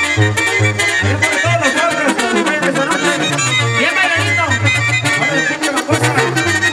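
Live band playing dance music through a loud sound system, with a steady, regular bass pulse under the melody.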